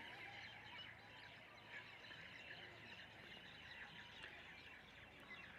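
Near silence with faint bird chirping in the background.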